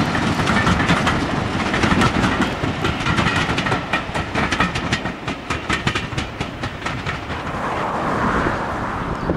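Diesel locomotive passing close with its engine running, followed by its coaches rolling by, their wheels clicking rapidly over the rail joints. The sound eases near the end.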